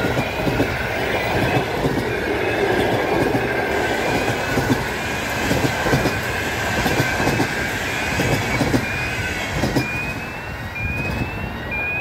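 Passenger coaches rolling past at speed: a steady rush of wheel and rail noise with wheels clacking over rail joints, easing off about ten seconds in as the tail of the train passes. A rising whistle-like tone repeats about once a second throughout and grows louder near the end.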